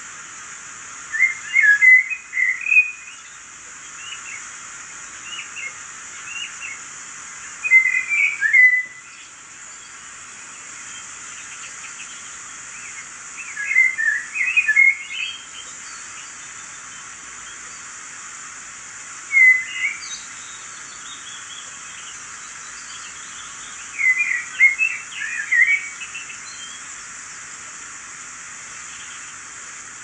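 Recorded birdsong over a steady rush of stream water, played from a laptop's speakers: clusters of quick, high chirps and trills every few seconds.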